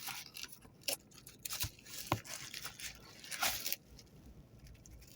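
Camcorder box and packaging being handled and rummaged through: irregular crinkling, rustling and small clicks that die down after about four seconds.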